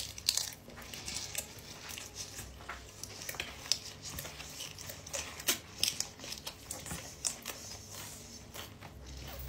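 A person chewing a mouthful of burger, with faint irregular mouth clicks and smacks. The cardboard burger box crinkles as the burger is handled and set down in it near the end.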